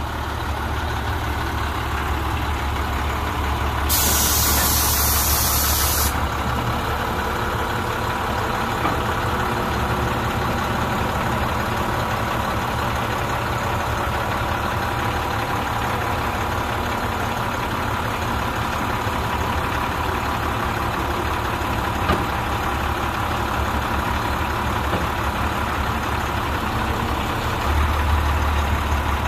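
International DT466E 7.6-litre six-cylinder diesel of a dump truck idling steadily. About four seconds in there is a burst of compressed air hissing for about two seconds, and later a single short click. The low rumble grows a little louder near the end.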